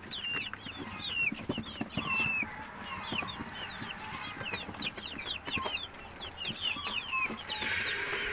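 A flock of chicks peeping continuously: many short, high peeps, each falling in pitch, overlapping several a second, with scattered light taps.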